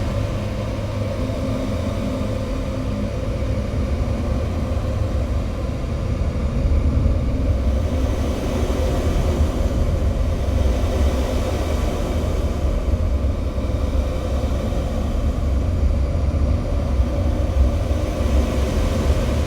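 A steady, dense low rumble with a droning hum above it, part of a recorded experimental track. It gets slightly louder about six seconds in.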